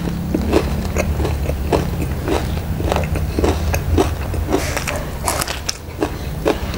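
Close-miked crunchy chewing of crispy fried tofu (tahu garing), about two crunches a second, with a bite into a fresh green chili about four seconds in, over a low steady hum.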